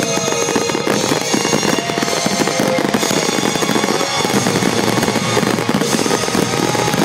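Aerial fireworks finale: a dense, continuous barrage of bangs and crackling shells bursting one over another.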